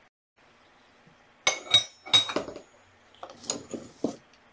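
Metal hand wrenches clinking and clattering together as they are set down and picked up, several sharp knocks, some with a brief metallic ring.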